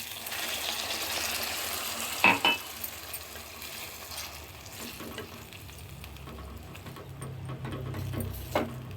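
Sizzling in a hot kadai of okra in mustard-poppy paste as warm water is poured in and stirred, the hiss starting sharply and fading slowly. A spatula clanks against the pan twice, about two seconds in and near the end.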